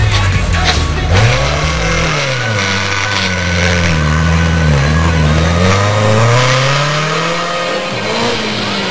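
Rally car's engine revving hard on a gravel stage, its pitch rising and dropping again and again as it accelerates away through the gears. Near the end another car's engine rises as it comes in.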